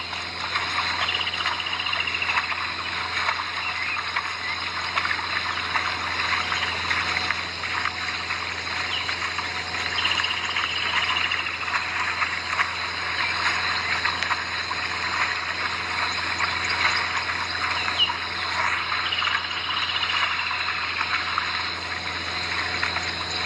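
Steady, dense chorus of calling frogs at the water's edge, with a short descending chirp standing out every few seconds.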